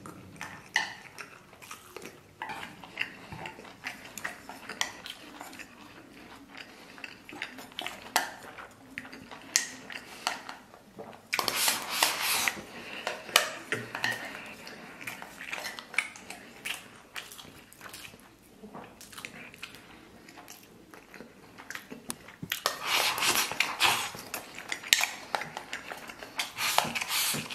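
Close-up eating sounds: chewing and slurping mouthfuls of rice and meat, with wooden chopsticks clicking and scraping on a metal plate. Twice, a louder rush of slurping lasts a couple of seconds.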